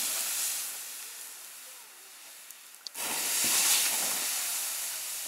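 Water poured onto a campfire's hot coals, hissing as steam rises and fading away, then a second, louder pour about three seconds in.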